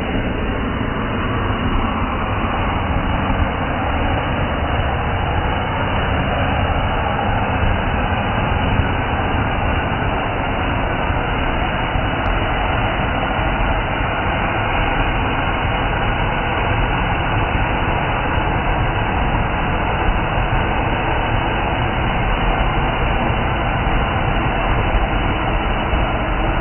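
Ground spark fountain firework burning with a steady, loud rushing hiss as it throws up its column of sparks.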